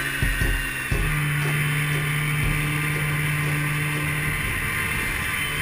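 Snowmobile engine running at a steady speed with track and wind noise, heard from the rider's seat; a few knocks in the first second, then an even drone.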